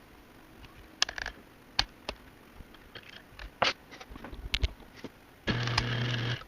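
A run of light clicks and knocks from parts being handled, then near the end the Ilco 017 key duplicator's electric motor is switched on, hums steadily for about a second and cuts off.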